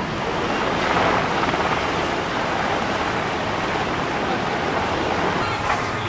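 Steady rushing of wind and sea with wind buffeting the microphone, even and unbroken with no distinct mechanical tone.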